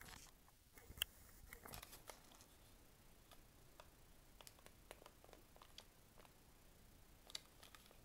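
Near silence: faint room tone with a few scattered soft clicks, a sharper one about a second in and another near the end.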